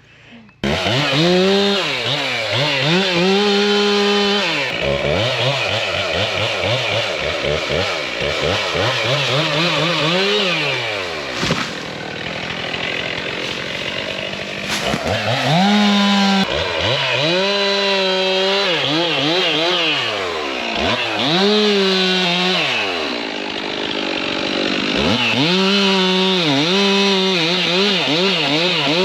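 Chainsaw starting abruptly under a second in, then revving up to full throttle, holding, and dropping back to idle again and again as it cuts through limbs.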